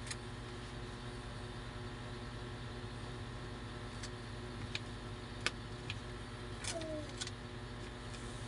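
Wallpaper being pressed and smoothed onto a wall by hand: a few light crackles and ticks of the paper, mostly in the second half, over a steady low background hum.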